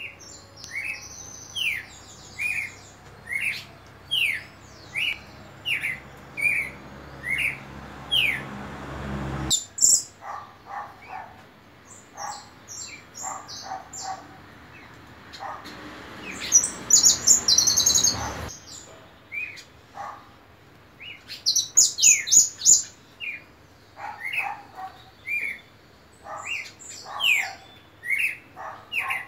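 Red-crested cardinal singing a run of short, falling whistled notes, about two a second, with other birds chirping higher. Twice a rushing noise swells and cuts off suddenly.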